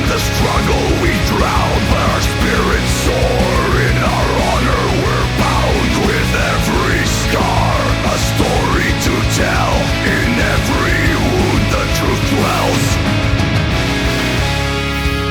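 Melodic death metal instrumental passage: distorted guitars with a fast-moving lead melody over dense drumming. About a second before the end it changes to held chords.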